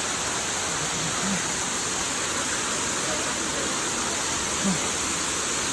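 Waterfall rushing: a steady, even hiss of falling water with no let-up. A person's voice is heard briefly twice.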